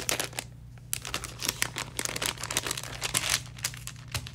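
Paper gift bag crinkling and rustling in irregular crackles as its sticker seal is picked at and peeled off, the paper tearing a little as it comes away.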